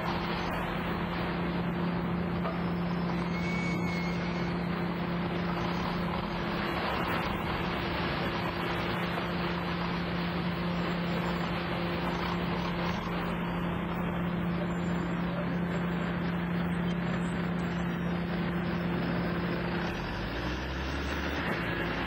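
Sawmill machinery running steadily: a constant low hum over a noisy mechanical din.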